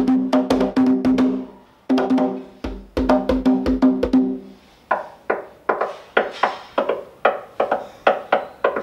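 Tall hand drum played with bare hands. It starts with fast runs of ringing open tones, broken by a short pause about a second and a half in. After about five seconds it turns to a steadier pattern of sharper, drier strokes, about three a second.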